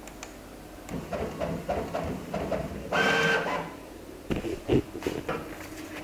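Printer running: a series of clicks and short whirs, then a loud steady whir for about half a second in the middle, followed by a few more clicks.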